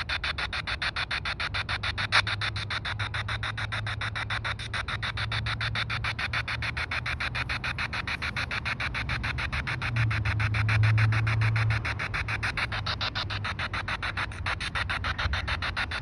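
Handheld spirit box sweeping rapidly through FM radio stations: a choppy stutter of radio static at about seven chops a second, with a low hum that swells about ten seconds in.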